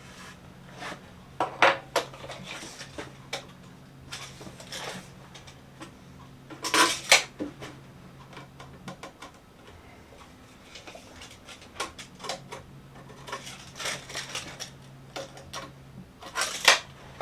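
Irregular knocks and light clatter of a wooden top board being shifted and tapped into place on a wooden stand, loudest about seven seconds in and near the end, over a faint steady low hum.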